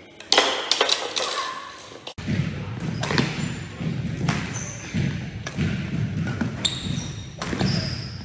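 Badminton rally in a large gym hall: rackets hitting a shuttlecock with sharp, echoing hits every second or so, and short high squeaks of sneakers on the wooden court.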